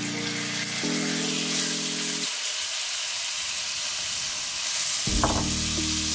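Marinated chicken pieces sizzling in hot oil in a non-stick wok as they are tipped in and stirred with a silicone spatula.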